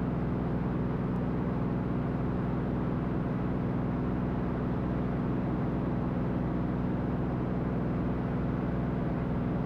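Cirrus SR22T's turbocharged six-cylinder Continental engine and propeller droning steadily at climb power, heard from inside the cockpit.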